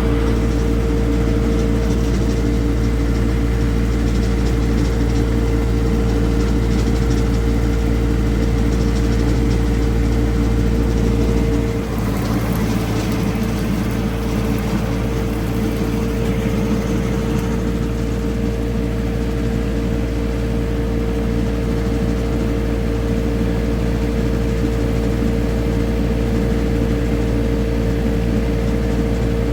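Loader engine running steadily, with a small change in level and tone about twelve seconds in.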